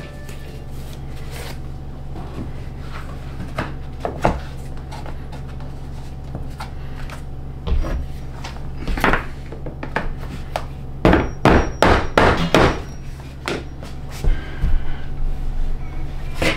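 Claw hammer knocking on the metal duct at a floor vent opening: a couple of single blows about halfway in, then a quick run of about half a dozen hits and a few more. A steady low hum runs underneath.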